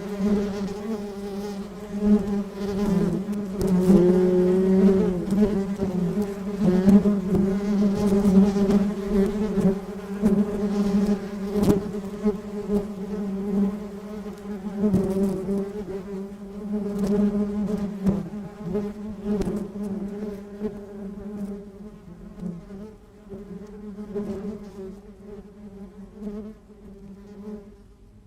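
Bee buzzing sound effect: a continuous buzz whose pitch wavers slightly, fading gradually over the second half.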